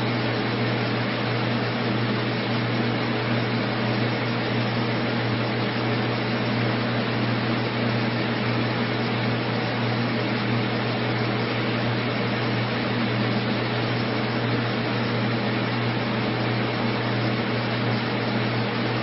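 Steady machine hum with a constant hiss, a strong low drone that never changes: ventilation or fan noise, not the sound of the floodwater.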